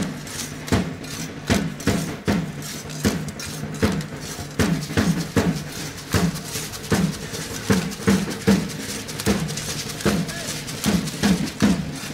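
Drums beating a steady rhythm of evenly spaced strokes, a little under two a second, each with a low ringing tone.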